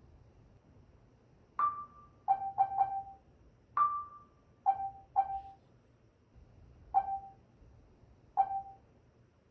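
Short electronic interface pings, nine in all at irregular intervals: a higher tone twice and a lower tone seven times. Each one sounds like a menu being stepped through on a screen.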